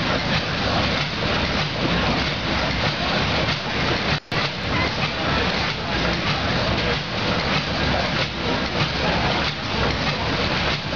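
Steam engine running: a steady, noisy hiss and rumble, cut out for a moment about four seconds in.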